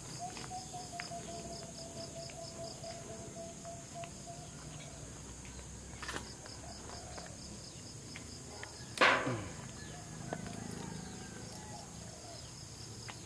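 Steady high chirring of insects, pulsing for the first few seconds, with faint clicks and one sharp knock about nine seconds in.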